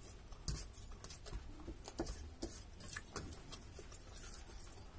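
Eating sounds: scattered soft clicks and smacks of chewing and of fingers mixing rice on a steel plate, a couple of times a second at irregular intervals.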